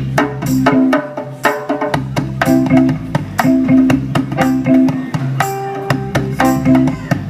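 Live reggae band playing an instrumental groove: bass line, plucked guitar chords and percussion in a steady beat.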